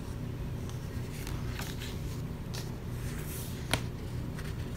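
Paper sticker sheets of a sticker book being turned by hand: a few soft paper rustles and one sharp click a little past halfway, over a steady low hum.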